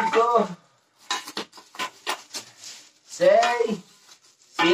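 Small plastic bags of furniture hardware (screws and fittings) being handled and set down, giving a quick run of clicks, rattles and crinkles. A short voiced sound comes at the start and another a little after 3 seconds.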